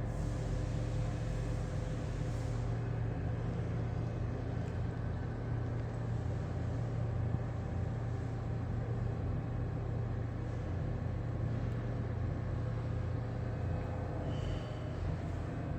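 A steady low mechanical hum and rumble that holds level throughout, with a brief faint high tone near the end.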